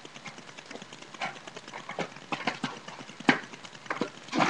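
Skateboard and sneakers knocking and scuffing on concrete as the rider shifts his feet on and around the board: an irregular series of light taps and clicks, the sharpest a little past three seconds in.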